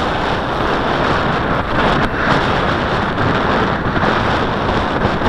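Strong wind blowing across the camera microphone: a steady, loud rushing noise.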